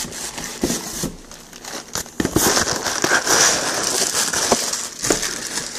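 Plastic bag wrapping a laptop power cord crinkling and crackling as it is handled and pulled open, with a few sharp crackles at first and steady crinkling from about two seconds in.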